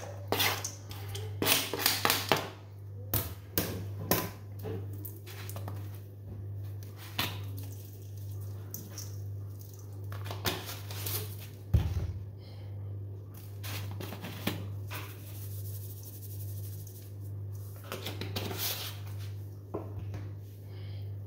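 Kitchen knife scraping chopped onion and scallion off a plastic cutting board into a stainless steel bowl, with a quick run of clicks and scrapes in the first couple of seconds. After that come scattered light taps over a steady low hum.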